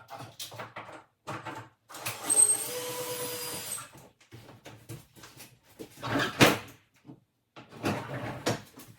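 A power drill runs steadily for about two seconds, backing out the screws that hold a kitchen cabinet to the wall. Around it are the knocks and clatter of the cabinet being worked loose, the loudest about six seconds in.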